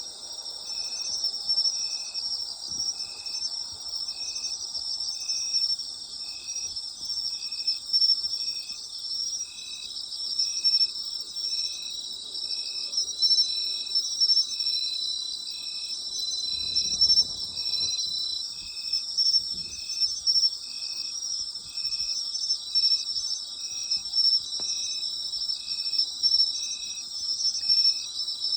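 Night chorus of autumn insects: a dense, continuous high-pitched trilling, with one insect chirping in a steady rhythm a little over once a second.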